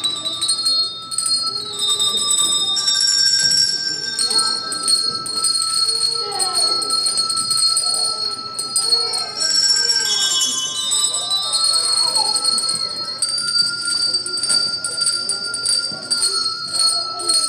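Tuned bells ringing a slow melody, each note held and ringing on until the next one changes the pitch every second or two, with children's voices underneath.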